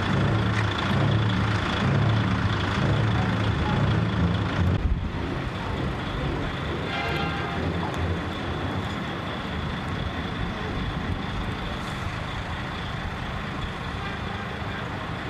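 Diesel truck engines running, with a deep low rumble for the first five seconds. After a sudden change it becomes a quieter, steady engine-and-vehicle drone, with a short pitched tone about seven seconds in.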